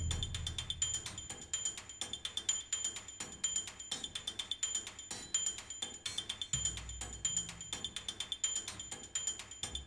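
Quiet background music: fast ticking percussion under short, high beeping tones repeating in a steady pattern, with a low bass coming in about two-thirds of the way through.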